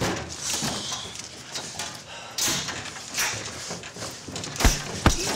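Blows landing in a staged fist fight: a run of sharp hits and scuffles, with two heavy low thuds near the end.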